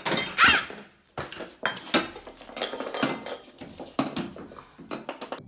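Clattering and clinking of hard objects, like dishes or cutlery: a quick string of knocks, with a short high cry about half a second in.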